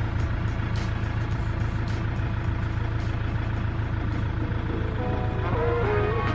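Steady low rumble of a running motor vehicle, with music fading in over it near the end.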